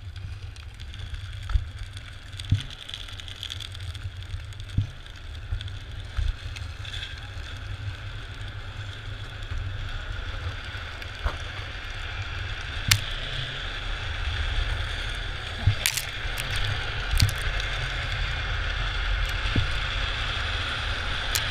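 Drift trikes rolling and sliding downhill on asphalt on their hard plastic rear sleeves: a steady hiss that grows louder as speed builds, over low wind rumble on the microphone. A few sharp knocks and clicks stand out, the loudest about 13 and 16 seconds in.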